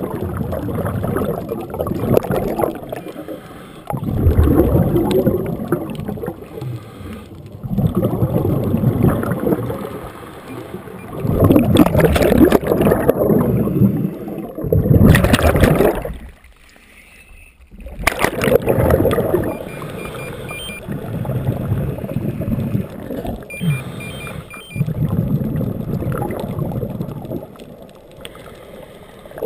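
Scuba diver breathing underwater through a regulator, the exhaled air bubbling out in loud rushes every few seconds, with a quiet gap of about two seconds past the middle.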